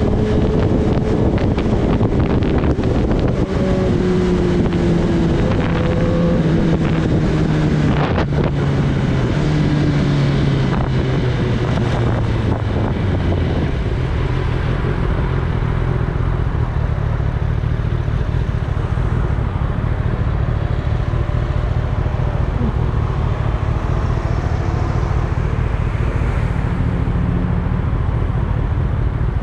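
Kawasaki Ninja ZX-10R's inline-four engine heard from the rider's seat as the bike slows: its note falls steadily over the first dozen seconds, with wind rushing over the microphone, then runs steady at low revs as the bike rolls slowly.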